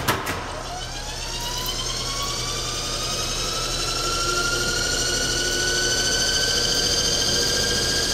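PCC streetcar traction motor spinning up from standstill: a couple of sharp clicks at the start, then an electric whine that rises steadily in pitch as the motor gathers speed and levels off near the end, over a steady low hum.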